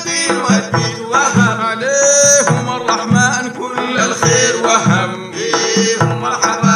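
Sudanese madeeh, a Sufi praise song, sung by voices over a steady drum beat of about two strokes a second.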